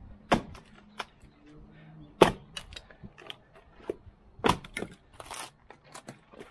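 Splitting maul striking a dry ponderosa pine round, with sharp cracks as the wood splits; the loudest strike comes about two seconds in. Then the split pieces knock and clatter as they are pulled apart by hand.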